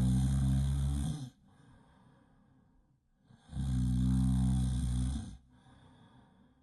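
Loud snoring: a long, low, buzzing snore that stops a little over a second in, a soft breath, then another long snore near the middle, followed by another soft breath.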